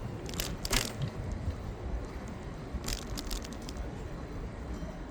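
Bicycle ride through city streets: a steady low rumble of riding, with a few sharp clicks and rattles in a cluster about half a second in and again about three seconds in.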